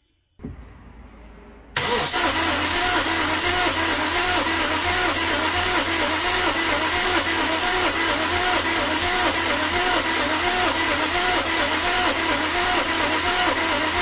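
Starter motor cranking a BMW N52 straight-six with its spark plugs out, injectors and coils unplugged, for a compression test on one cylinder. A fast, even cranking that starts about two seconds in and keeps going, after a brief quieter sound.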